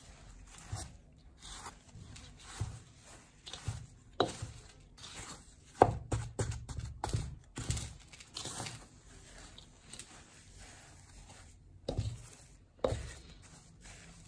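Washing powder being mixed by hand in a steel bowl: a plastic scoop scraping and crunching through damp, lumpy soda ash worked with acid slurry, in irregular strokes with a few sharper, louder scrapes.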